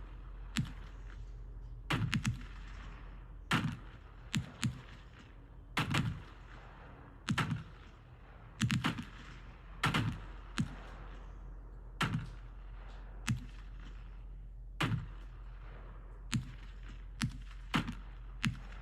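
Consumer aerial firework cakes firing: sharp bangs at an irregular pace, about one a second and some in quick pairs, several followed by a brief hiss or crackle.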